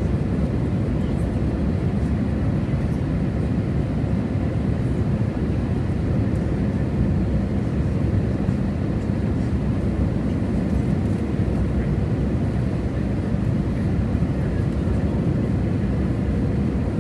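Airbus A320 cabin noise: a steady low rumble of engines and airflow with a faint constant hum, unchanging throughout.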